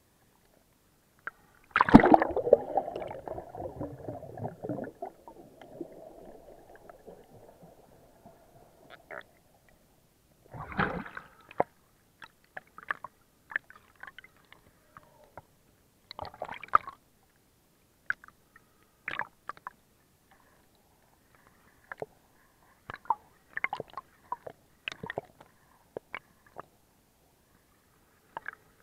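Sea water sloshing and gurgling around a camera at the surface as it dips in and out of the water. A loud splash comes about two seconds in and dies away over a few seconds, followed by scattered short splashes and pops.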